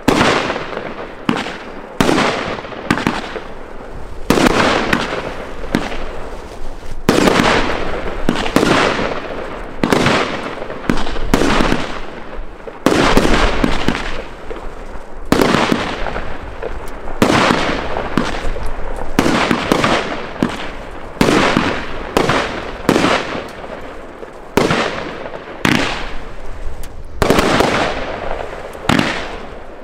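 Aerial fireworks bursting in quick succession, a run of loud bangs about one a second, each fading out over a moment before the next.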